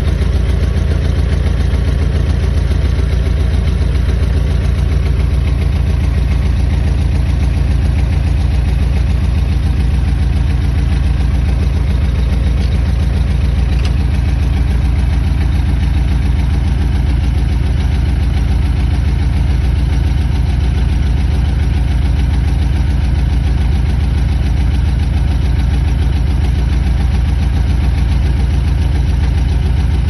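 Vehicle engine running steadily at idle, heard close up from on the vehicle, with an even beat that does not change throughout.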